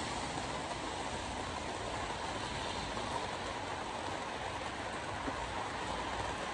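Steady road noise inside a car driving in heavy rain: tyres on the wet highway and rain on the windshield.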